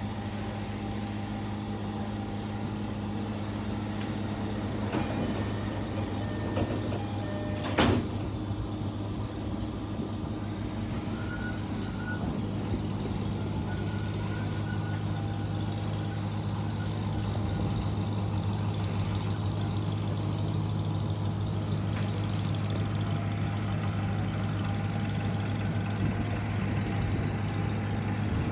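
Air-conditioning unit of a commuter railcar giving a steady droning hum, an abnormal noise the rider takes for a broken air conditioner. There is one sharp click about eight seconds in.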